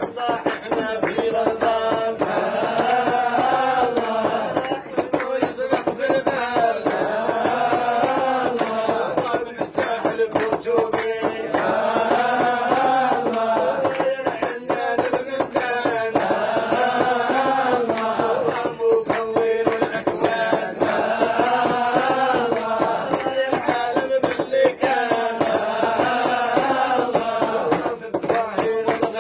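Men chanting dhikr, a Sufi madih in praise of the Prophet, singing one melody together and repeating a phrase every three to four seconds, with frequent sharp percussive strikes.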